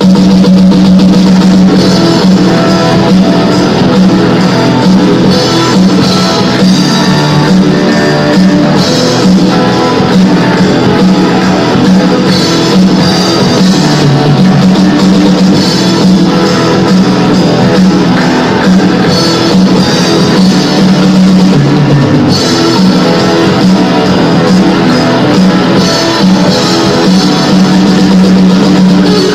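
Live rock band playing loud, with electric guitar and drum kit, recorded in a concert hall; the music cuts in abruptly at full level right after a brief dropout.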